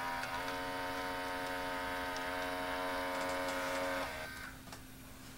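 Kodak Kodavision 8mm camcorder's tape-threading mechanism whining steadily as it unloads the cassette on its own, stopping abruptly about four seconds in, with a low hum carrying on underneath. Unloading the tape unbidden on leaving playback is a fault the owner can't explain.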